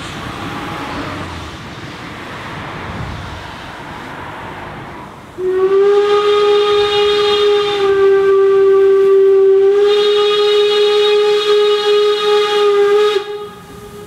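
A car passes on the road, then a Harz narrow-gauge steam locomotive's whistle sounds one long, loud blast of about eight seconds. The blast shifts slightly in pitch partway through and cuts off sharply near the end.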